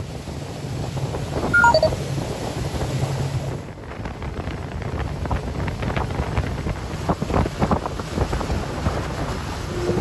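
Wind buffeting the microphone over choppy sea water, gusting harder in the second half. A low steady hum runs under it for the first few seconds, and a quick three-note falling beep sounds about a second and a half in.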